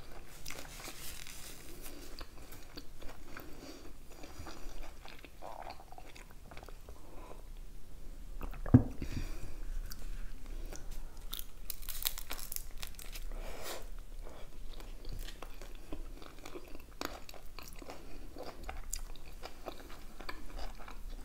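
Close-up chewing and biting of a soft lavash shawarma wrap filled with chicken, tomato and pickled cucumbers: wet mouth sounds with small clicks and crunches. There is a single sharp knock about nine seconds in.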